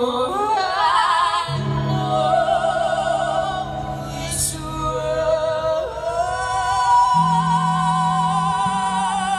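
Live rock band playing, with a woman singing long, held notes with a wide vibrato over sustained low keyboard or bass notes.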